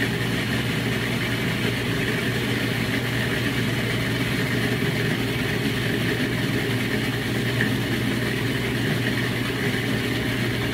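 Food processor motor running steadily, puréeing basil pesto in the bowl; an even low hum with no change in speed.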